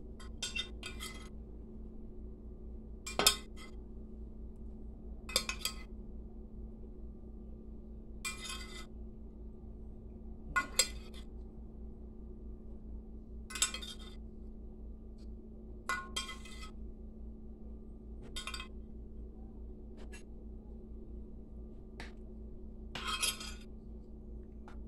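Scattered short clinks of a glass baking dish and a metal spoon against a slow cooker's crock as sliced sausage is added to stew and stirred in, about a dozen in all, the loudest about three seconds in. A steady low hum runs underneath.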